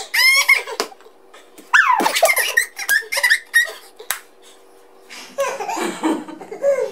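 A toddler squealing with laughter in high, rising-and-falling bursts, twice, with a couple of sharp knocks between. A lower adult voice joins near the end.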